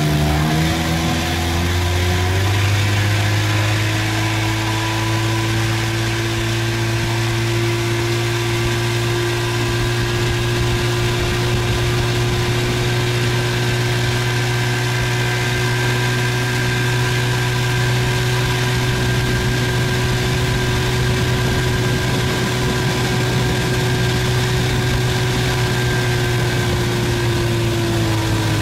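Small boat's outboard motor running under way: it picks up revs over the first couple of seconds, holds a steady cruising pitch, then eases off slightly near the end, over a rush of wind and water.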